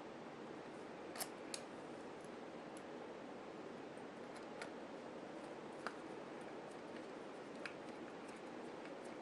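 A few small, sharp clicks scattered over a faint steady hiss: a plastic beadlock ring and its screws being handled and fitted onto an RC wheel.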